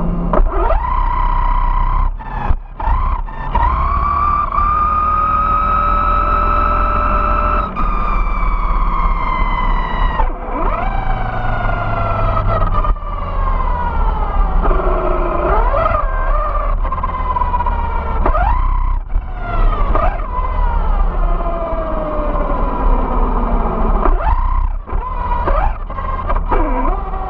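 Onboard sound of an electric RC buggy (Vaterra Glamis Uno, running on a 2S LiPo): the motor and gears whine, rising and falling in pitch again and again as the throttle is opened and eased, over the rumble of tyres on asphalt. The whine drops out briefly a few times.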